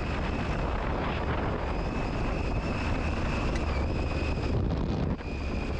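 Adventure motorcycle riding along a gravel road, heard from a helmet camera: steady engine rumble under heavy wind rush on the microphone, with a steady high-pitched whine running through it.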